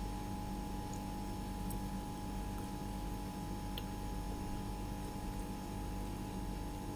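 A steady hum holding several fixed tones, with a few faint clicks, one near the start and one about four seconds in.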